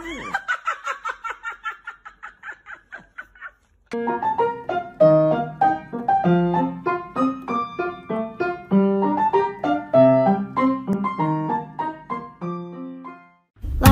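Background piano music. A fast patter of repeated high notes fades out over the first few seconds, then after a brief gap a melody plays over low bass notes.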